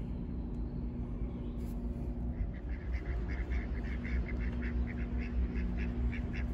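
Domestic ducks quacking: a rapid run of short, repeated quacks that starts a couple of seconds in, over a faint steady hum.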